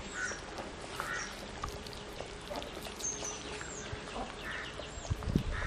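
Birds calling: a few short harsh quack-like calls spaced a second or more apart, mixed with high, quick falling chirps. Near the end come a couple of low knocks as the clay cooking pot is handled and set down.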